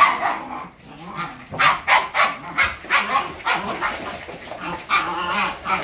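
Siberian huskies barking in a scuffle, adult dogs correcting a feisty two-month-old puppy that fights back. A quick run of short, sharp barks starts about a second and a half in, with a longer drawn-out call near the end.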